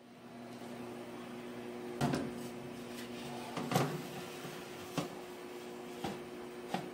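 Preheated convection oven's fan running with a steady hum, while a baking tray is slid onto the oven rack, knocking against it about five times, the loudest about four seconds in.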